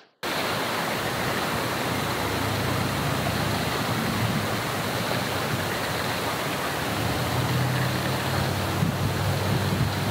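Wind blowing across the microphone: a steady rushing hiss with a low rumble that swells and eases.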